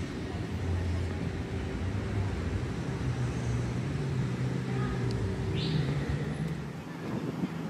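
Street traffic: a vehicle engine running with a steady low hum that rises in pitch a little past the middle, as if pulling away or speeding up.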